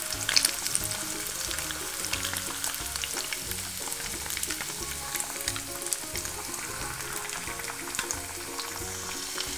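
Two eggs frying with chopped spring onions in oil and a little water in a pan, sizzling steadily with fine crackles.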